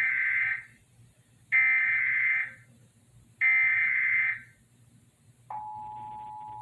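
Emergency Alert System SAME data header: three bursts of about a second each of screechy digital warbling tones, the first already under way. About five and a half seconds in, the steady EAS attention tone starts and holds, marking the start of the Required Monthly Test alert.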